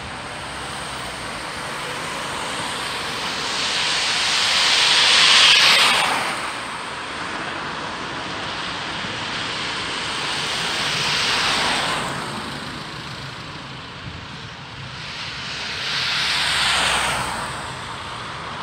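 Road traffic going by close: three vehicles pass one after another, each a swell of tyre and engine noise that rises and fades. The first, about five seconds in, is the loudest.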